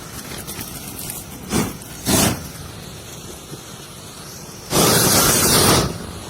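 Propane weed burner torch flame hissing, flaring in two short blasts and then a longer, louder blast of about a second.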